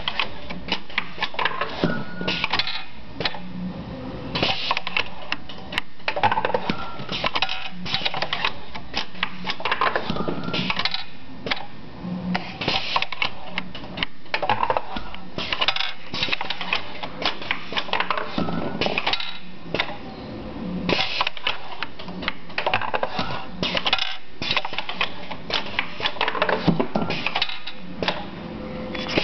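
Automated rocker-arm production machine running, with pneumatic actuators and metal parts making rapid, irregular clacking and clicking over a faint steady hum.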